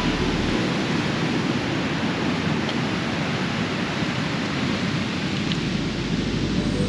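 Steady rushing noise of ocean surf and wind along a rocky coastline, with no single wave or gust standing out.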